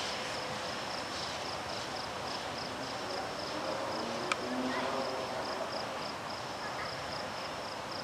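Insects chirping steadily in a rapid, pulsing high note over the fading rolling noise of a freight train's tank cars moving away. There is a single sharp click about four seconds in.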